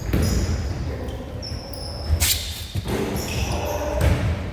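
Basketball game play on a gym court: the ball bouncing on the floor with short, high squeaks mixed in, echoing in a large hall.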